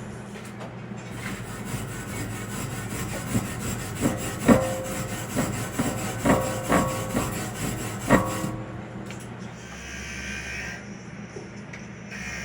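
Arc welding crackle on rusty steel I-beam, with several sharp ringing metal knocks in the middle, over a steady low hum. The crackle stops about two-thirds of the way in.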